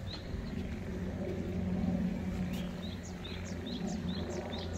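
A small bird singing a rapid run of short, high, downward-sweeping chirps, most of them in the second half, over a low steady hum.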